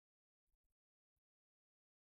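Near silence, broken only by a few very faint clicks.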